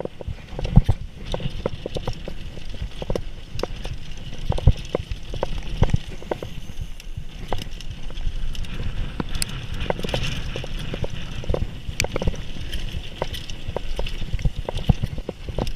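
Mountain bike running fast down a dirt trail: a steady low rumble of tyres on the ground with irregular knocks and rattles as the bike clatters over bumps.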